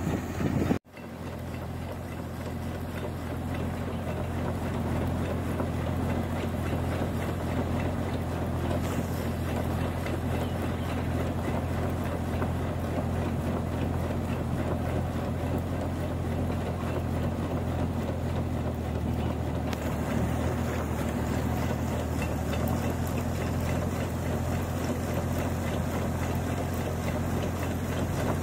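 Rice combine harvester's engine running steadily while its unloading auger discharges harvested grain, a constant low mechanical drone. The sound drops out briefly in the first second.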